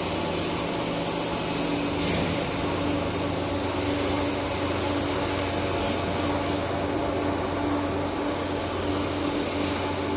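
Steady hum and hiss of running machinery, with a few low steady tones, one of which drops out a few seconds in.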